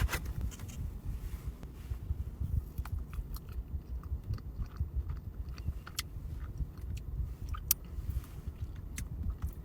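Close-up biting and chewing of a frozen ice pop with a milky coating and a chocolate centre: scattered crisp crunches and clicks over a low rumble.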